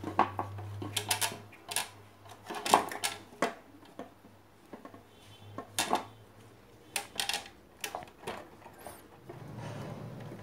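Irregular clicks and clatters of small hard parts being handled and set down while a blender motor is taken apart, with a softer rustle near the end.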